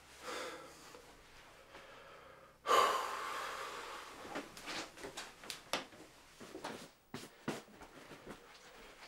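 A man breathing hard, with a loud sharp breath about three seconds in, then a run of short knocks of footsteps as he walks across the floor.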